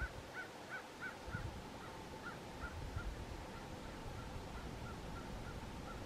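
Common raven giving a short, low croak about a second and a half in. Under it are a faint outdoor background and a small high chirp repeated two or three times a second.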